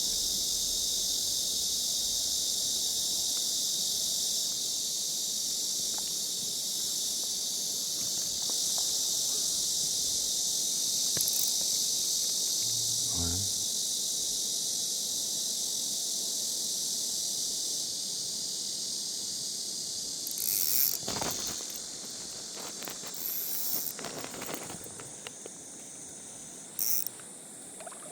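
Dense chorus of summer insects, a steady high-pitched drone that thins out about twenty seconds in, after which a few short knocks are heard.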